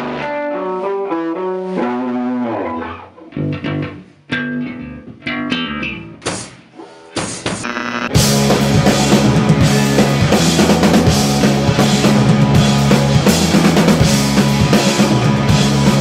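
A math rock / post-hardcore band playing. For about eight seconds a lone electric guitar picks a halting melodic line of separate notes with gaps. Then the full band crashes in loud with drum kit, guitars and bass.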